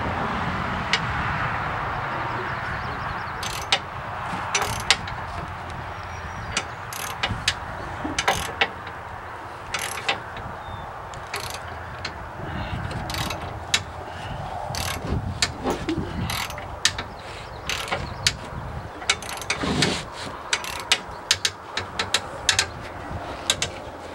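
Hand ratchet wrench clicking in short, irregular runs as bolts are run in on a truck frame's cross-member. Sharp metallic clicks sound over a steady rush that fades during the first few seconds.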